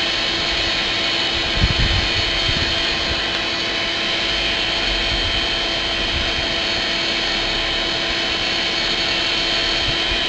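Air blower on a coal forge running steadily, a constant rushing noise with a steady tone, forcing air into the fire to bring the metal to heat. A brief low bump about a second and a half in.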